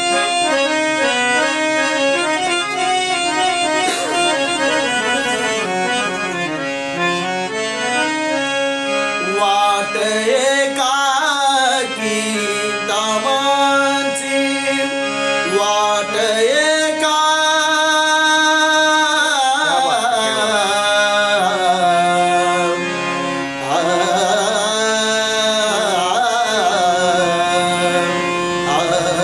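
A man singing a traditional Indian folk song, the voice gliding and ornamenting the melody over a steady held drone from a reed instrument.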